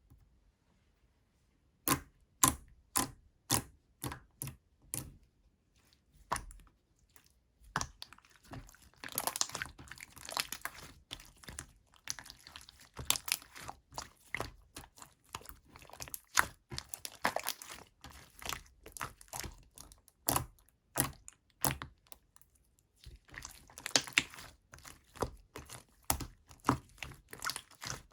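Chewy clear slime being pressed and stretched by hand, with sticky popping clicks. About two seconds in comes a run of sharp pops, roughly two a second. From about eight seconds in it turns to denser, irregular crackling and squishing.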